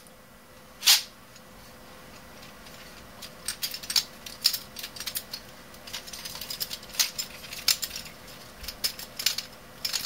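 Plastic keys in the upper housing of a rubber-dome membrane keyboard clicking and rattling as it is handled, with the rubber domes removed: one louder click about a second in, then a run of small, irregular clicks from a few seconds in.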